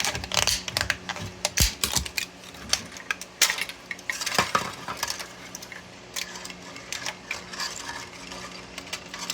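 PLA support material being snapped and pried off a 3D print: irregular sharp plastic clicks and cracks, with small pieces clattering down, one crack louder about three and a half seconds in.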